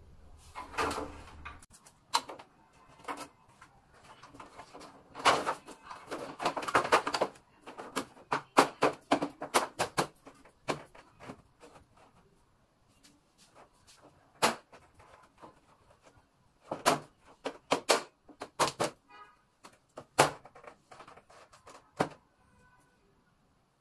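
Plastic casing of an air conditioner's indoor unit being handled and fitted back on: a long series of irregular clicks, knocks and snaps, some in quick clusters, with short quiet gaps between.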